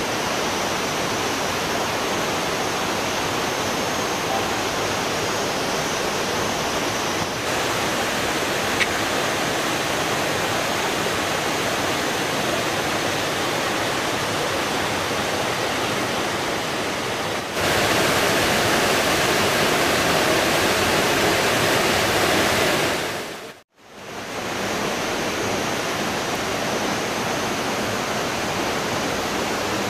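Waterfall rushing steadily. The sound steps up louder a little past halfway and cuts out for a moment about four fifths in before returning at its earlier level.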